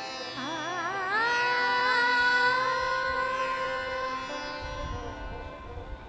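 Indian classical-style background music: a wordless melodic line with quick wavering ornaments, settling into one long held note, with a low rumble coming in near the end.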